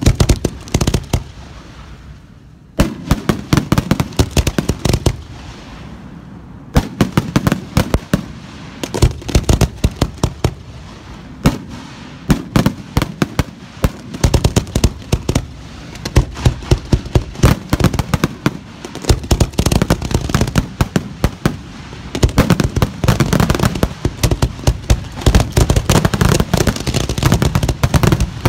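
Professional display fireworks shells fired from ground mortars at close range: rapid launch thumps and shell bursts with crackling, nearly without a break. There is a brief lull about two seconds in, and the firing grows denser in the second half.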